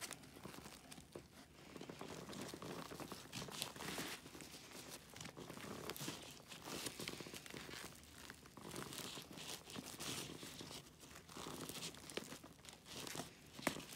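A plastic sternum-strap slider scraping and clicking against the plastic tube rail of an Osprey Kestrel 48 backpack's shoulder strap, with the nylon strap fabric rustling, as hands force the slider onto the rail. The sounds come as faint, irregular scratches and small clicks.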